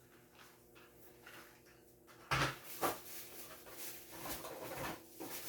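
Handling of die-cast toy car packaging: two sharp knocks a little past two seconds in, then crinkling and rustling.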